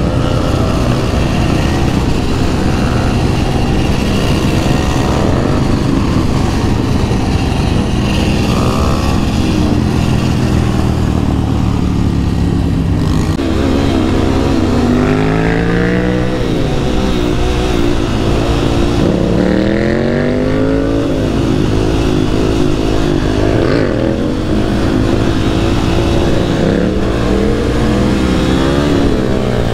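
Supermoto dirt bike engine running under the rider, revving up and down through the gears. The engine pitch climbs and falls again and again, mostly in the second half, over steady wind rush on the microphone, with other motorcycles riding close by.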